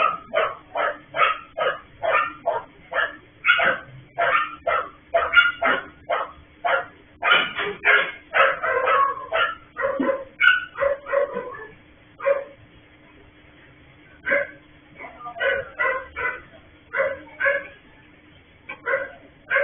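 Dog barking over and over, about two barks a second, with a pause of about two seconds about two-thirds of the way through before the barking starts again. A faint steady hum lies under it.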